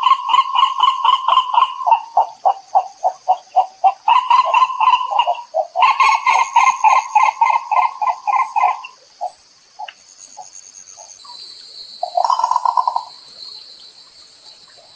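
Green ibis calling: a fast rolling run of notes that slows into separate pulses, a second rolling run about six seconds in that trails off into spaced pulses by about nine seconds, and a short burst of notes near twelve seconds.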